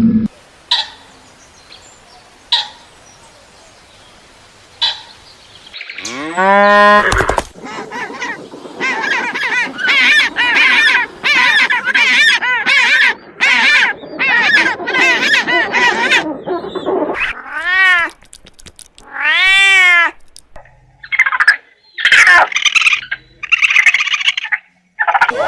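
A string of different animal calls, one after another: a few sharp clicks, then a long call that rises and falls, a fast run of short repeated calls, and two long arched calls, with more short calls near the end.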